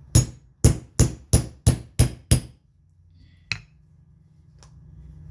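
Hammer striking a steel punch seven times in quick succession, about three blows a second, driving an old snap out of a leather vest over a holed steel block; a single lighter knock follows about three and a half seconds in.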